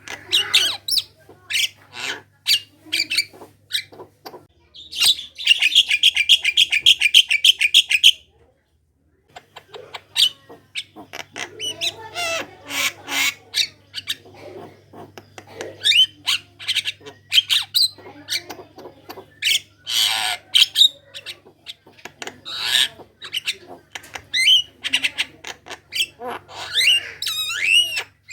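Javan myna singing a lively chattering song of harsh squawks, clicks and short whistles. About five seconds in, a rapid buzzing trill lasts about three seconds and breaks off into a second of silence before the chatter resumes.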